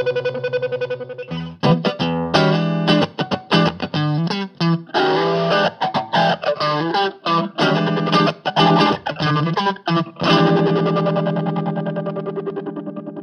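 Electric guitar played through effects pedals: a held, wavering chord, then a run of short, choppy stabbed notes, then a final chord about ten seconds in that rings on and slowly fades.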